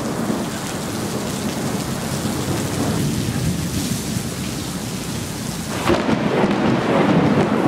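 Rumbling thunder over steady heavy rain from a severe thunderstorm close by. About six seconds in, the sound turns louder and duller.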